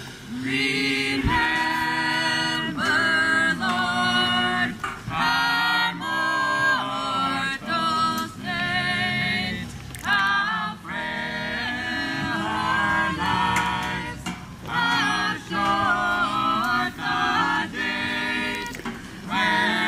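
A chorus of men's and women's voices singing together unaccompanied, in short held phrases that break off and restart about every second.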